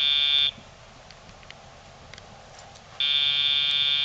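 Sound box on a Dogtra e-collar transmitter buzzing: a short buzz that stops about half a second in, then a longer steady buzz starting about three seconds in. The longer buzz signals that the pager (vibration) is being used on the dog.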